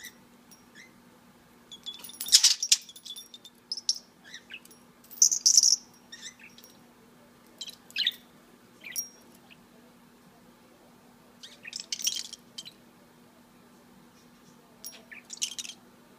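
A small metal bell on a budgie's hanging ring toy clinking in short, scattered bursts, mixed with brief chirps from an English budgie. The loudest clink comes about two seconds in.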